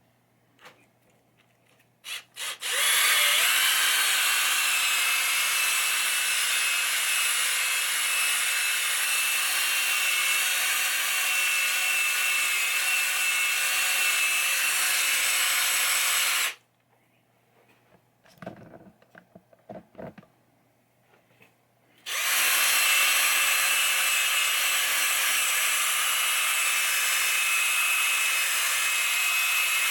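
Electric drill spinning a polishing bit over a pinball playfield's surface, buffing it with plastic polish: a steady whine with a rubbing hiss. It runs for about fourteen seconds, stops for a few seconds with some light knocks, then starts again.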